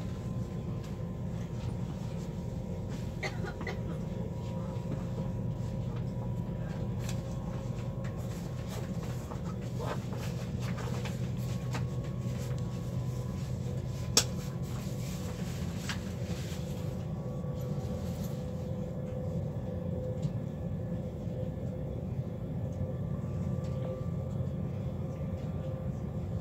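Cabin noise inside a Deutsche Bahn ICE 4 running at speed: a steady low rumble from the running gear, with a faint steady whine from the traction motors and a few light clicks and knocks, one sharper click about halfway through.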